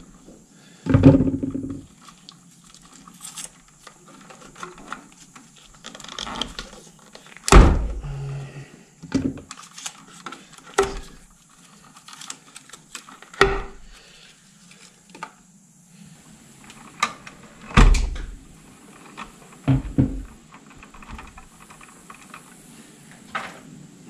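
Handling noise from stripping insulation off electrical cable at a plastic wall box: scattered clicks, scrapes and rustles of wire, with several dull thunks.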